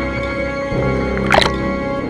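Background soundtrack music of sustained held tones, with one short, sharp noise about a second and a half in.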